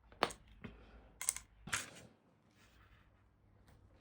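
Hands handling the e-bike's wiring and plastic parts: a sharp click, then two short rustling scrapes about a second later, followed by faint quiet handling.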